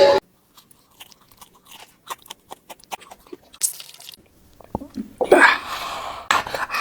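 Crunchy food being bitten and chewed close to the microphone: a run of irregular crisp crunches that grow louder and denser about five seconds in.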